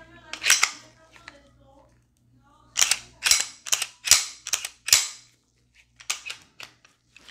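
Sharp metallic clicks and snaps from a Glock 22C's firing pin and slide being worked by hand: one snap, then a quick run of about six, then a few fainter clicks. The firing pin seems to be getting stuck.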